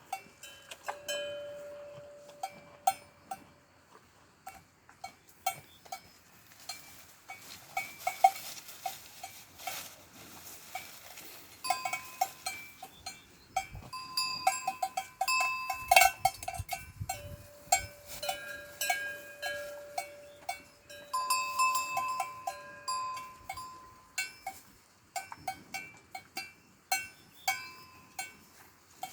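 Cowbells hung on cows' necks clanking irregularly as the animals move their heads, each clank ringing on briefly, with more than one bell pitch.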